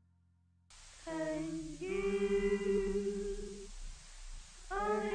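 A voice holds long, steady notes twice, like singing or drawn-out calls, over a steady hiss inside a crowded cable-car cabin. Just before this, the last of a background music track fades out.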